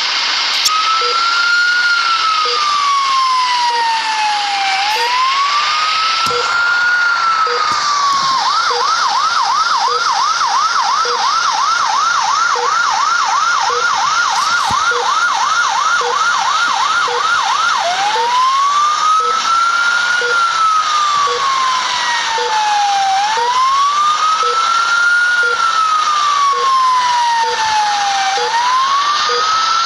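Ambulance siren sounding a wail, rising and falling in pitch about once every five seconds, switching about eight seconds in to a fast yelp of about three sweeps a second, then back to the wail a little after halfway. A faint tick repeats about once a second beneath it.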